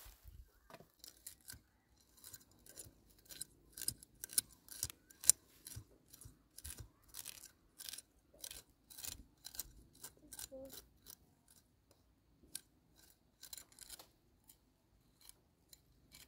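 Machete blade scraping soil and hair roots off a freshly dug wild yam tuber: a run of short, sharp scrapes at about two or three a second, thinning out in the last few seconds.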